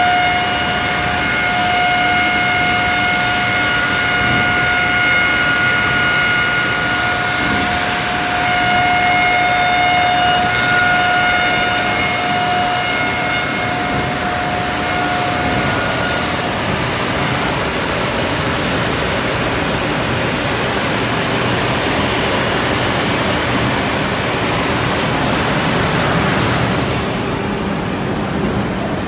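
CNC copy-shaping spindle moulder running, its high-speed milling and sanding spindles cutting and sanding a wooden workpiece. A steady high whine rides over a rushing noise until a little past halfway, when the whine stops and the rushing machining noise carries on.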